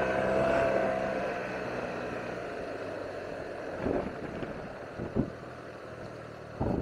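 Yamaha TMAX 560 scooter's parallel-twin engine running while riding, over a steady rush of road and wind noise. The engine's hum fades about a second and a half in, and a few short thumps come in the second half.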